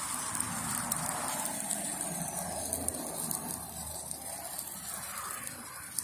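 Chicken shashlik skewers sizzling over hot charcoal in a mangal: a steady hiss with faint scattered crackles from the embers.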